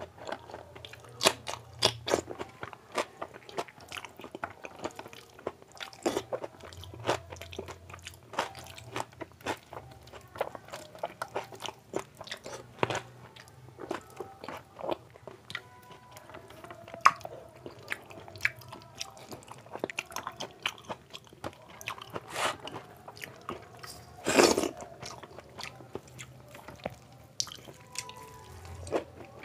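Close-miked eating by hand: chewing and crunching mouthfuls of soaked water rice (panta bhat) with fried sides, with wet squelching as fingers mix the rice on a steel plate. Frequent sharp, irregular mouth clicks, with one louder, longer burst late on.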